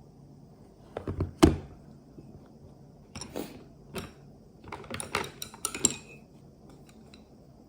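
Knocks and clicks of objects being handled: a sharp knock about a second and a half in, then a cluster of taps and clicks between about three and six seconds.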